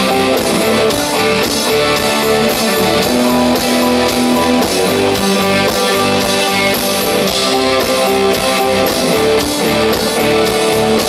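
Live pop-rock band playing an instrumental passage between sung lines: guitar chords over a steady beat, loud and continuous.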